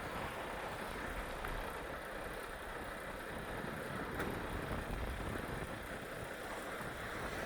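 Semi truck's engine running with a steady low rumble.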